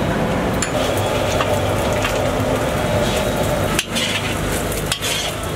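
Chopped beans and carrots sizzling in hot oil in a large wok, stirred and tossed with a spatula scraping against the pan.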